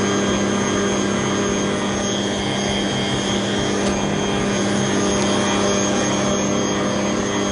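Electric stand mixer running steadily at speed, its whisk beating whipping cream with canned cream (qishta) in a stainless steel bowl: a constant motor hum and whir.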